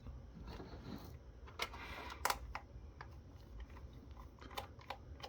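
Faint scattered clicks and a few light knocks of a plastic keypad being handled.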